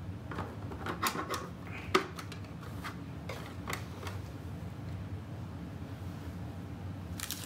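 Light plastic clicks and knocks as a plastic divider is slotted into a printer cart's plastic drawer, the sharpest knock about two seconds in. The handling stops after about four seconds, leaving a steady low hum.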